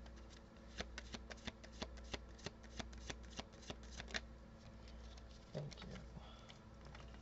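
Tarot cards being shuffled by hand: a quick run of light card clicks for about four seconds, then quieter handling of the deck.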